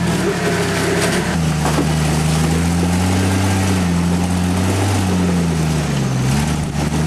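Rock-crawling 4x4's engine running under load on a rock climb, its revs rising about a second in, easing and swelling as the throttle is worked, and dipping near the end.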